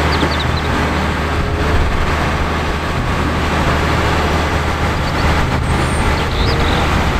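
Diesel engine of a concrete mixer truck with a pump boom, running steadily with a strong low rumble.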